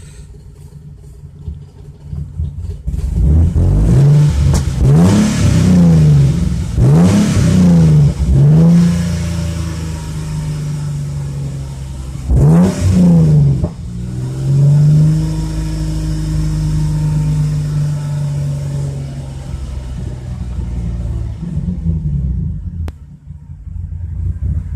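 2004 Chrysler Crossfire's 3.2-litre V6 revved in a series of quick blips, then held at raised revs for a few seconds before dropping back toward idle. This is an engine that has a rough idle.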